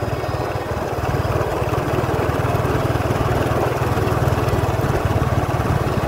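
Small motorbike engine running steadily at low road speed, a fast even throb, with a rush of wind and road noise over it.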